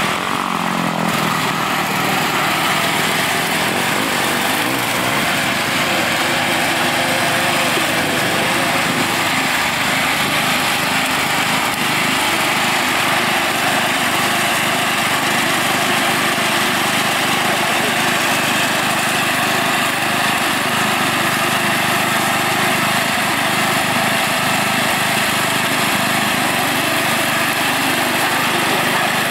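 Stock Toro riding lawn mower's small engine running steadily as the mower is driven off-road over sand and through brush.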